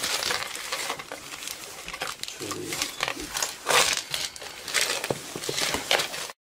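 Close handling noise of a pile of jewelry and plastic bags being sorted by hand: irregular rustling and crinkling, loudest twice in the second half.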